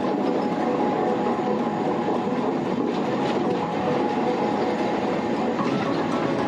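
A train running steadily over a riveted steel girder bridge, heard from on board: continuous wheel-on-rail noise with no breaks.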